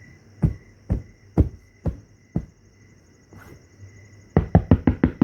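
Footsteps, five heavy steps about half a second apart, then a quick run of about seven knocks on a door near the end. Crickets sound steadily in the background.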